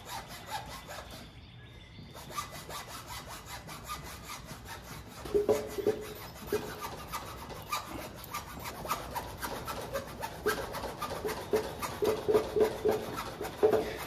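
An old tire being cut off a dirt-bike wheel with a saw: rough back-and-forth sawing strokes, faint at first, then steadier and louder at about two to three strokes a second over the second half.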